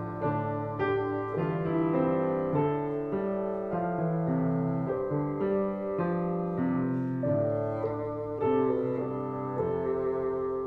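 Slow instrumental background music, a melody over sustained chords with notes changing about every half second to a second.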